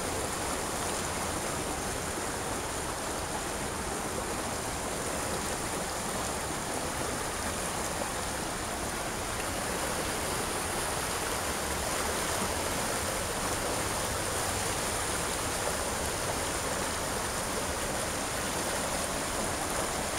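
Creek water flowing and rippling, a steady rushing noise with no breaks.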